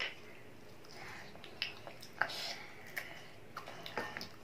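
A child chewing chicken, with scattered lip smacks and wet mouth clicks every half second or so.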